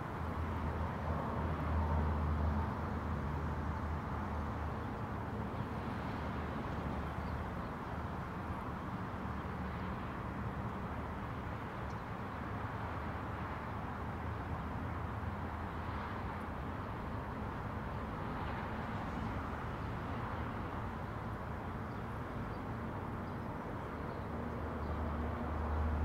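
Steady traffic rumble from a road with wind, a vehicle passing louder about two seconds in and again near the end.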